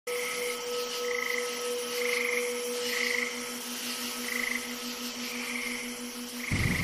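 A chorus of animal calls: a short chirp repeating about once a second over a fast, pulsing low drone and a faint hiss. A low rumble starts near the end.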